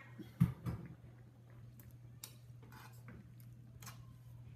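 Two low thumps about half a second in, then a few light, scattered clicks, the last with a short ring, over a steady low hum.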